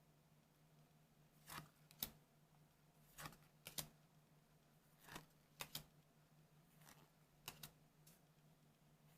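Faint short swishes and clicks of trading cards being slid and flipped one after another, about a dozen in all and some in quick pairs, over a low steady hum.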